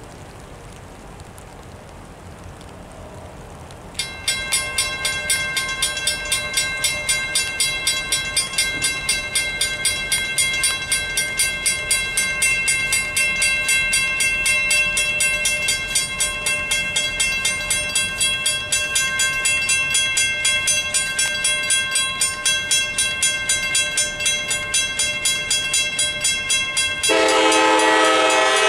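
Rain falling, then about four seconds in a railroad grade-crossing warning bell starts ringing in even strokes, about two a second, as the crossing signals activate. Near the end a dinner train's locomotive horn starts blowing, the loudest sound.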